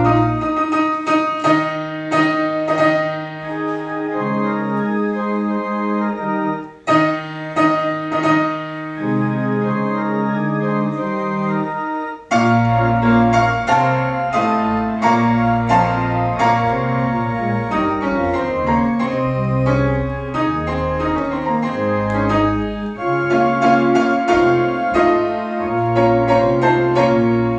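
Church keyboard music, piano and organ, playing chords over held bass notes, with two brief breaks between phrases.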